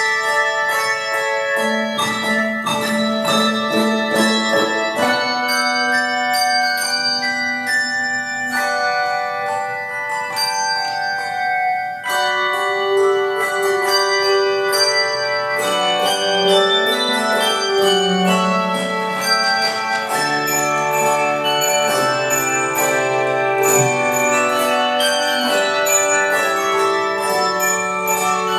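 Instrumental Christmas music played on ringing bells, many struck notes sustaining and overlapping in a slow melody, with a brief break about twelve seconds in before the playing resumes.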